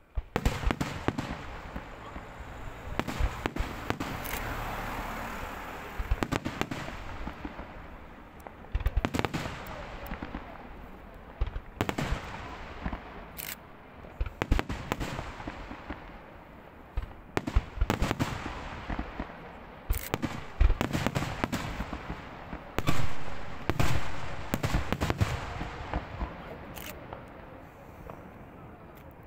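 Fireworks display: a rapid series of sharp bangs and crackling, in bursts of several bangs close together, the loudest volleys in the second half.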